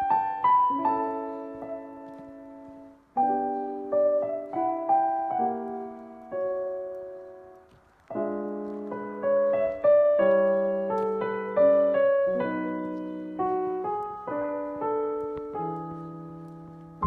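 Background music: slow solo piano playing sustained chords and melody notes, each fading after it is struck, with short pauses between phrases.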